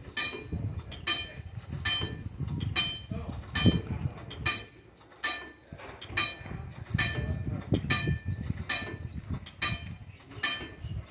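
Wig-wag level crossing signal in operation, its warning bell striking in a steady rhythm of about two strokes a second, each stroke ringing on, over a low rumble.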